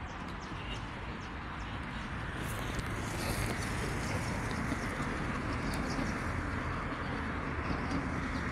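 Steady roadside traffic noise from cars on the road, growing louder about three seconds in as vehicles pass.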